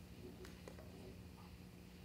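Near silence: room tone with a steady low hum, and a couple of faint clicks about half a second in.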